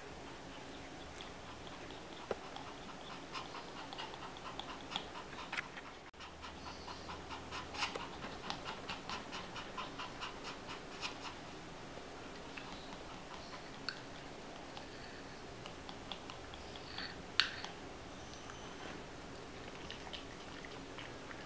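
A small dog panting rapidly, about three breaths a second, then a few sharp wet clicks and licks as it takes ice cream from a spoon.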